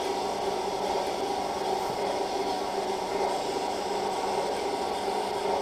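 Powered arthroscopy equipment running with a steady mechanical hum and hiss, several constant tones held throughout.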